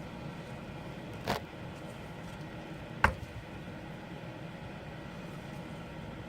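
A steady background hum, with a brief swish a little over a second in and one sharp click about three seconds in, the sounds of handling parts on a workbench.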